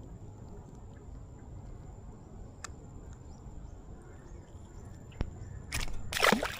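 Low, steady outdoor rumble, then a short, loud water splash near the end.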